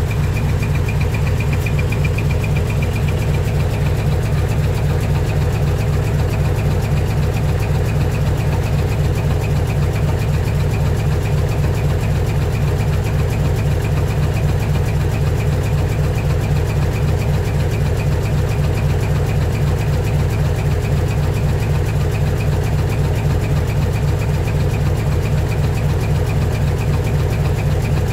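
Decorated refrigerated truck's diesel engine idling through a manifold-split (mani-wari) exhaust: a steady, loud, deep exhaust throb with a rapid even beat.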